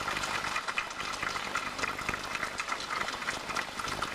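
Crowd applauding steadily: a dense patter of many hands clapping.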